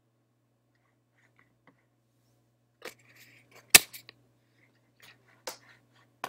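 Microphone handling noise as the recording sound is adjusted: about half a dozen sharp clicks and knocks starting about three seconds in, one much louder knock among them, over a faint steady electrical hum.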